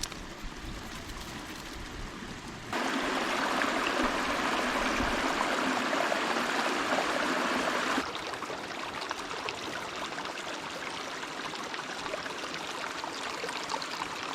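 Small creek running over rocks, a steady rushing babble. It gets abruptly louder about three seconds in and drops back abruptly about eight seconds in.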